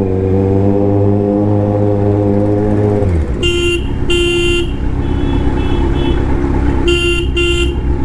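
Kawasaki Z900 inline-four held at a steady rev for about three seconds, then dropping back. A horn then honks twice, gives three shorter, fainter toots, and honks twice more over the low rumble of traffic.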